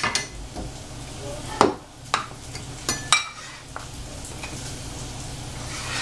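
Sliced squash being gathered off a plastic cutting board and put into a bowl: a handful of sharp knocks and clacks in the first half, over a steady low hum.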